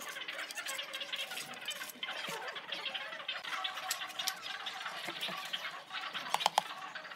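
Bricklaying work: a steel trowel tapping and scraping on bricks and mortar, with a few sharp taps about six and a half seconds in.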